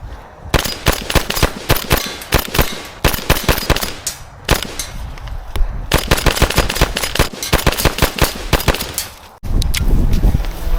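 Airsoft guns firing rapid strings of shots in long runs with short breaks between them. About a second before the end the shots give way to a low rumbling noise.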